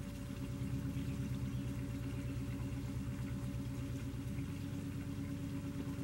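A steady low mechanical hum, with water from a hand-pump fountain spout splashing into a rock basin.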